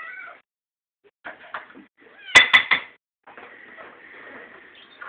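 A hungry kitten meowing for its food, one cry ending about half a second in. About halfway through comes a quick run of three or four sharp knocks, the loudest sound, followed by a long fainter stretch of rustling.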